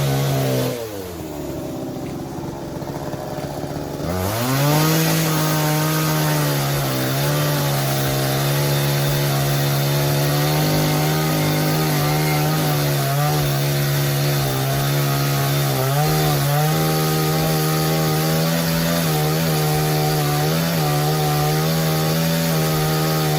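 Blue Max gas chainsaw: the engine falls off to a low idle about a second in, revs back up after about four seconds and runs at a steady high speed, dipping slightly now and then under load as it cuts dogwood.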